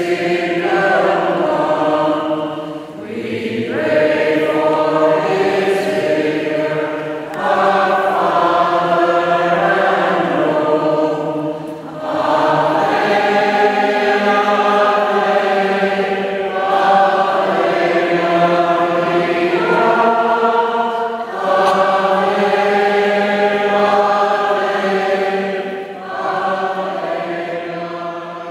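A choir sings a slow hymn in long held phrases, with a short breath between phrases every four to five seconds. The hymn dies away at the very end. This is the entrance hymn at the opening of Mass.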